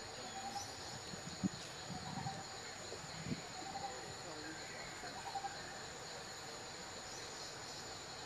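Steady high insect chorus, with a few faint short calls and soft low knocks in the first half.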